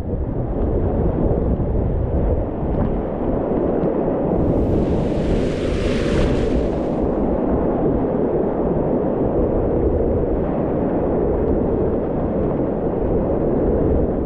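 Whitewater rapids rushing, a loud, dull, steady roar dominated by low sound. About a third of the way in, a brighter hiss of splashing spray lasts a couple of seconds.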